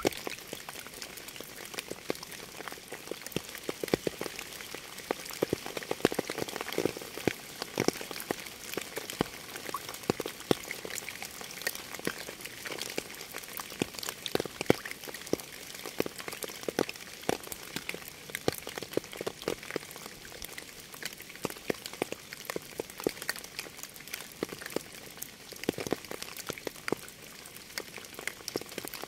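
Steady rain, with many separate drops heard as sharp, irregular taps over a constant hiss.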